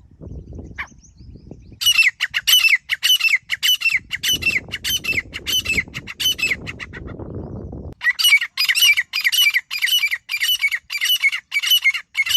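Grey francolin calling: a long run of loud, harsh notes repeated about three times a second, pausing briefly about two-thirds of the way through and then resuming.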